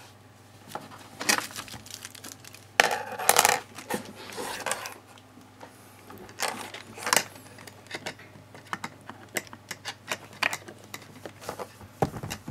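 A kitten rummaging among cables, bubble wrap and a plastic bottle: scattered small clicks, knocks and crinkling rustles, with the loudest burst about three seconds in.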